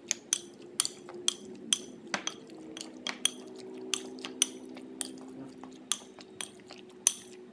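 Metal spoon clinking against a glass mixing bowl while stirring raw chicken pieces with cornstarch and seasoning, about two clinks a second, over a faint steady hum.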